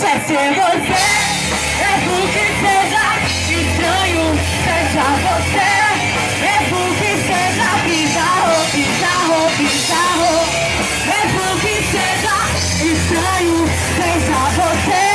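Rock band playing with a singer's voice carrying the melody over guitar, bass and drums.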